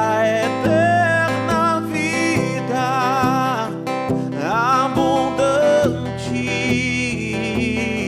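Worship song: acoustic guitar accompanying a voice that sings long, wavering held notes.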